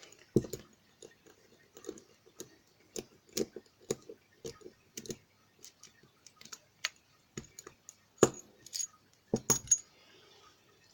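Small metallic clicks, taps and knocks at an irregular pace as a Lockwood 334C45 closed-shackle padlock is taken apart by hand and its parts and tools knock together. A few knocks stand out louder: one shortly after the start, one about three-quarters of the way through, and a quick pair soon after.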